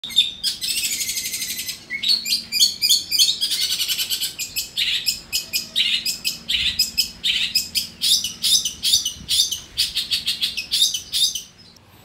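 Long-tailed shrike (cendet) singing: a rapid, unbroken stream of sharp chattering notes, with two longer harsh rattles in the first few seconds.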